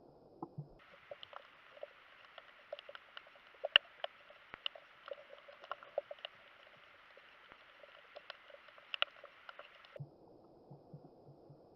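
Underwater sound: a faint hiss with many irregular sharp clicks and crackles. The hiss turns thinner and higher about a second in and returns to a duller tone near the end.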